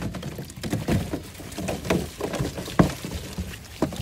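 Boiled shrimp, potatoes and other boil ingredients tumbling out of a perforated boil basket onto a tray: an irregular scatter of soft thuds and knocks, with a couple of sharper knocks near the end.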